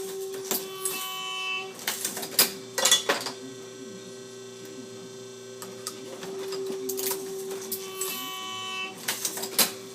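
MEC 9000H hydraulic shotshell reloading press cycling: a steady motor hum with a quick clatter of clicks and clacks about two seconds in and again near the end, two press strokes about seven seconds apart.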